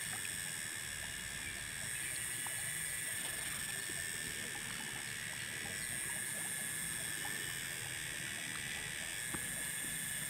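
Steady high-pitched drone of insects in the surrounding vegetation, swelling and easing slightly, with a few faint small ticks.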